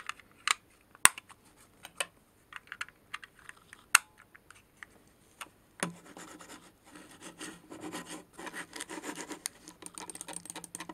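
Small plastic parts of a wireless computer mouse being handled: a scatter of sharp clicks and taps as batteries and the battery compartment are fitted, then a continuous scraping rub from about six seconds in.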